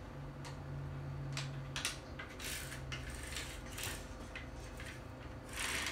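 Handling of a Smart Gun M57a and tools on a table: a few sharp clicks and knocks and several short scraping rustles, the longest near the end, over a steady low hum.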